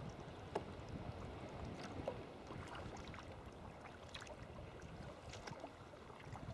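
Sea kayak being paddled in calm water: faint trickling splashes from the paddle blades and drips, over a low, steady wash of water against the hull.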